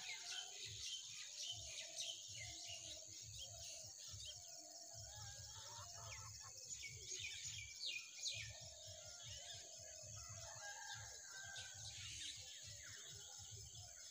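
Outdoor village ambience: small birds chirping repeatedly, with chickens and a rooster calling, over a steady high-pitched hiss.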